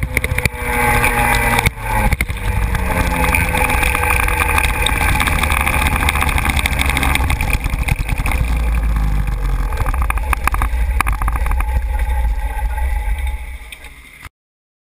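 125cc two-stroke racing kart engine running steadily at low revs off the throttle, heard from on board with road and wind noise. It fades near the end and then cuts off suddenly.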